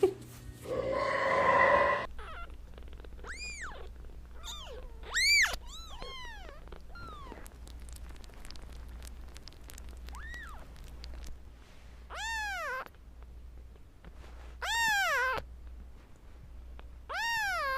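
Cat meowing over and over: a run of short meows, then three longer, louder meows near the end. About a second in there is a loud, steady tone that lasts about a second.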